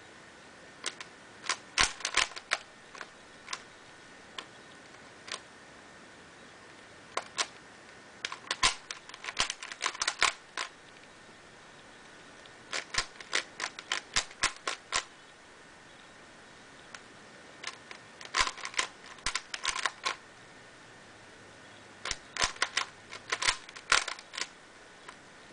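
Plastic clicking and clacking of a silicone-lubricated dollar-store 3x3 puzzle cube as its layers are turned during a solve. The turns come in quick bursts of several clicks, five times, with pauses of a few seconds between them.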